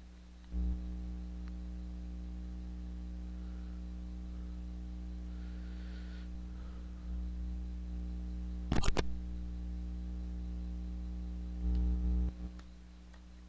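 Steady electrical mains hum that starts with a thump about half a second in. A short burst of sharp clicks comes about nine seconds in, and another thump near the end, after which the hum drops away.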